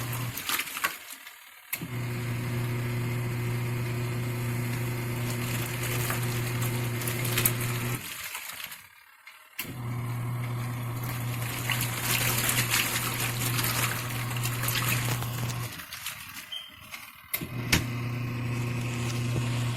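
ZENY portable mini washing machine running its wash cycle: a steady motor hum over sloshing water, which cuts out about a second in and twice more, roughly every seven seconds, for a second or two each time before the motor starts again, as the pulsator turns one way and then the other.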